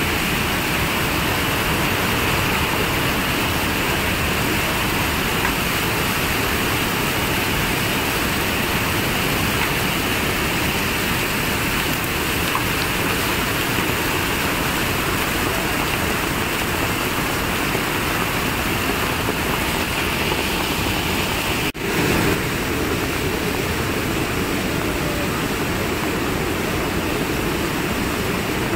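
Steady loud rushing of a swollen mountain river in flood, a torrent of muddy water pouring over rocks, with a momentary dip about two-thirds of the way through.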